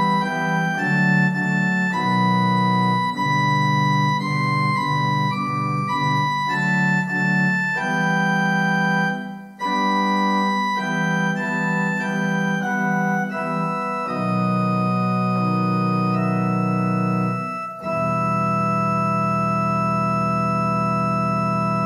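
Electronic keyboard on an organ voice playing slow, sustained chords, ending on one long held chord over the last four seconds.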